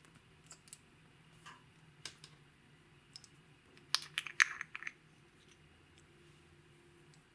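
Slime being worked and mixed, giving scattered small sticky clicks and a quick flurry of crackly clicks and pops about four seconds in.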